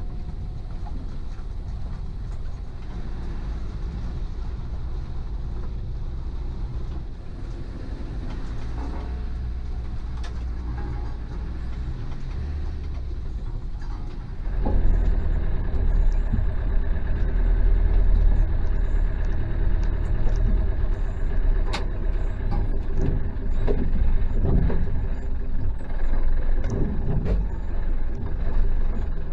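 Land Rover Defender engine running as the vehicle crawls along a rough, rutted lane. About halfway through it becomes louder and heavier, with scattered knocks and scrapes over the engine.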